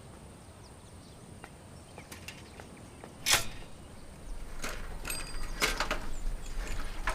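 A shared bicycle being handled and moved off. A single sharp click comes about three seconds in, then a low rolling rumble with a series of clicks and rattles.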